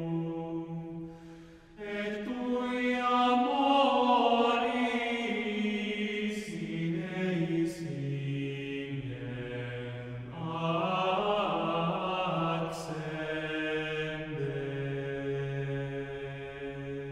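Male vocal ensemble singing slow, sustained sacred choral chant in several parts over a low held note. One phrase fades and a new one begins about two seconds in.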